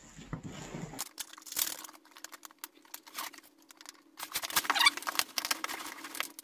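Small hardware clicking and rattling in the hands as a washer, wire retaining clip and nut are fitted onto the snowmobile's tail-light mounting and the nut run down. Scattered clicks at first, then a dense run of quick clicks and rattles over the last couple of seconds.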